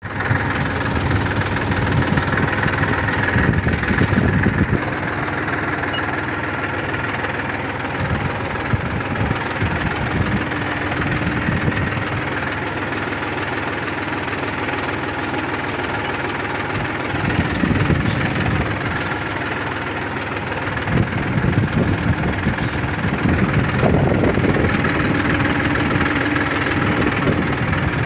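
Massey Ferguson tractor's diesel engine running steadily under load as it pulls a cultivator through a crop field, heard from the driver's seat, with slow swells in the low rumble.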